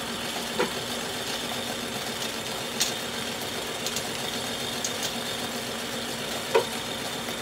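A steady mechanical hum of running kitchen appliances, with a few light taps as macaron shells are set down on a metal baking tray, the loudest about a second in and near the end.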